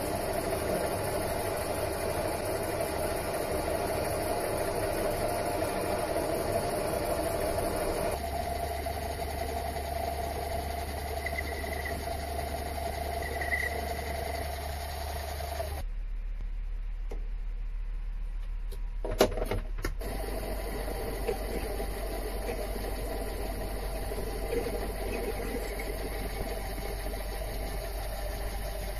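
Mini lathe running steadily, its motor and drive turning the chuck. The sound changes abruptly twice, and there is a single sharp click about two-thirds of the way in.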